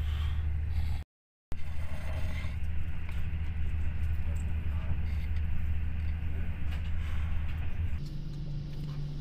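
Steady low rumble of a moving passenger train heard from inside the sleeper carriage. It cuts out for a moment about a second in and shifts to a slightly different hum near the end.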